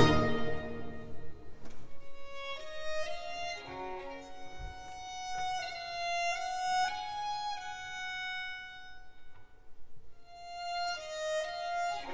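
Baroque violins on period instruments playing a quiet melodic line in a Peruvian baroque tonada, after a loud full-ensemble passage dies away at the start. The melody pauses briefly near the end, then starts again.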